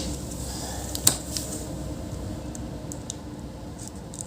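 Light clicks and taps of laptop parts being handled on the bench, with one sharper click about a second in, over a faint steady hum.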